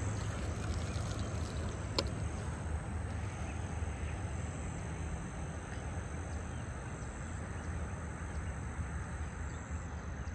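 Outdoor pondside ambience: a steady high-pitched insect drone over a steady low rumble, with a single sharp click about two seconds in.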